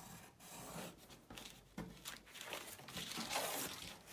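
Faint pencil scratching on cardboard in uneven strokes as a shape is traced, with the cardboard sheet sliding and being lifted off the bench near the end.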